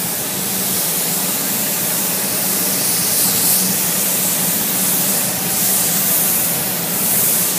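Spray gun hissing steadily as spray-on chrome is applied, over a low steady hum; the hiss brightens a few seconds in.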